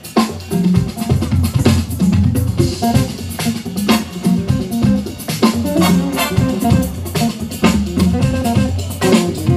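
A jazz band playing live, led by a drum kit and an electric guitar over moving bass notes.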